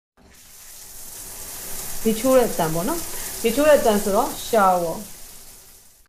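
Shower running: a steady hiss of spraying water that builds up and fades near the end. A person's voice comes over it in three short phrases.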